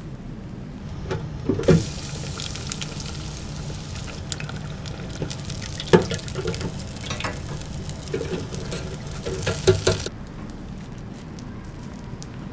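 Food frying on a hot griddle: a steady sizzle that starts abruptly about a second and a half in and cuts off abruptly about ten seconds in. Several sharp clicks and knocks of a utensil come through the sizzle, the loudest about six seconds in.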